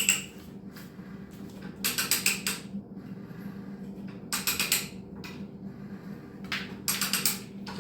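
Hand ratcheting pipe threader cutting threads on gas pipe: three bursts of rapid ratchet clicking about two seconds apart as the handle swings back between cutting strokes, over a steady low hum.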